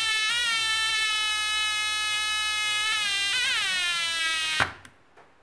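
Homemade rain-sensor alarm sounding a steady buzzing tone through a small loudspeaker, wobbling briefly in pitch a little past three seconds in. It cuts off abruptly about four and a half seconds in, as the water runs off the sloped sensor and it stops detecting.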